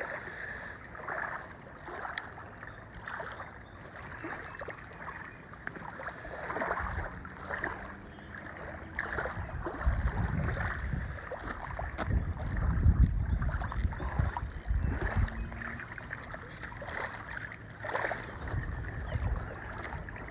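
Small waves lapping and splashing against a rocky riverbank, with wind rumbling on the microphone in gusts through the middle and again near the end. A couple of sharp clicks stand out, about two seconds in and near the middle.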